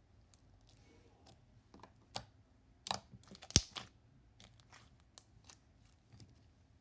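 Slime being squished and poked by hand, giving a run of crackles, clicks and pops. The loudest snap comes about three and a half seconds in.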